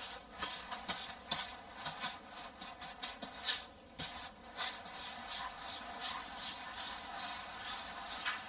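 Soft, irregular rubbing and scuffing strokes against a freshly sanded plasterboard patch, several a second.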